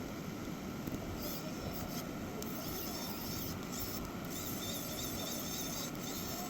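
Small electric screwdriver driving the phone's frame screws back in, running in several short high-pitched bursts over a steady background hum.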